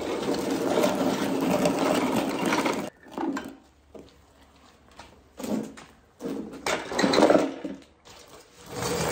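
A wing mower being wheeled by hand across a concrete floor, its wheels and metal frame rattling and clattering. It clatters continuously for about three seconds, then comes in several short bursts as it is pushed and shifted.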